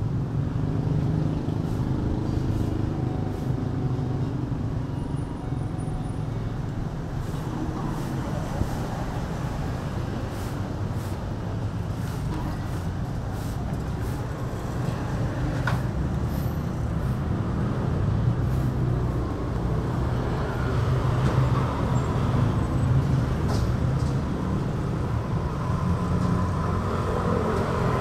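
Steady rumble of road traffic, with a few faint clicks scattered through it.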